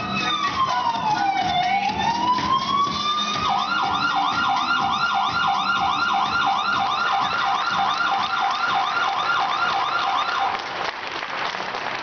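Siren sound effect in the dance music played over loudspeakers: one slow wail rising and falling, then a fast yelp of about three or four sweeps a second, which stops about ten and a half seconds in. Applause starts near the end.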